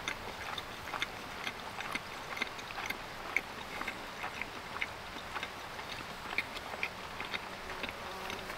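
Close-miked chewing of pizza: many soft, irregular crunches and mouth clicks over a steady faint hiss.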